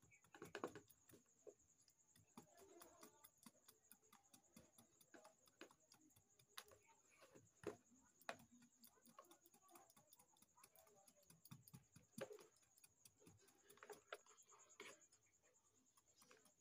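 Faint, irregular clicks and taps of a curved hand blade chopping small pieces off a bottle gourd, the pieces dropping into a metal bowl.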